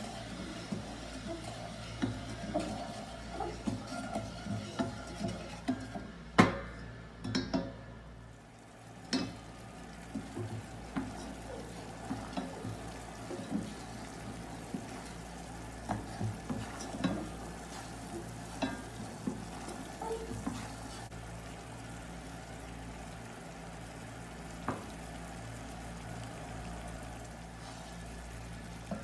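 Wooden spatula stirring sugar syrup in a stainless steel saucepan, with irregular taps and scrapes against the pan and one loud knock about six seconds in; the stirring thins out after about twenty seconds. Under it the sugar-and-water mixture simmers on low heat with a faint sizzle as it begins to bubble.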